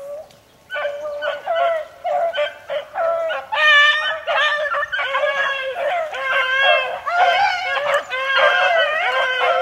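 Pack of beagles baying on a rabbit's trail, several voices overlapping. After a brief lull at the start the cries come in short chops, then grow into longer, denser bawling about three and a half seconds in.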